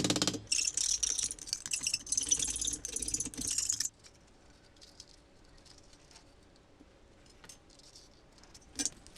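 Rattling, jangling noise made of quick irregular bursts for about the first four seconds. It then stops suddenly, leaving near-quiet with a few faint clicks and a short knock near the end.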